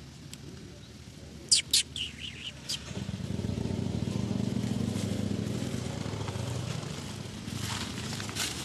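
A few sharp, high-pitched squeaks about a second and a half in. Then a motor vehicle engine passes with a steady low drone for about four seconds, swelling and then fading.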